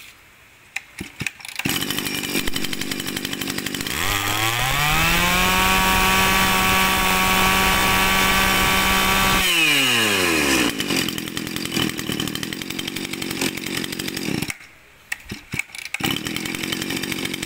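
Mitsubishi T140 brush cutter's small 23 cc two-stroke engine starting up, idling, then revved up for about five seconds and let back down to idle. The engine note dips briefly near the end. The running note is strong and punchy.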